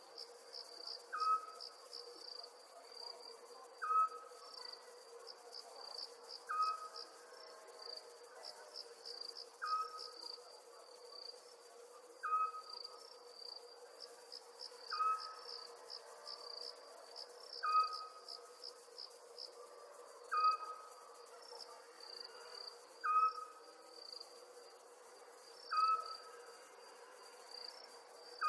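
Night crickets chirping in a steady, pulsing trill. A short, sharp call repeats about every two and a half seconds, some ten times, and a faint steady hum runs underneath.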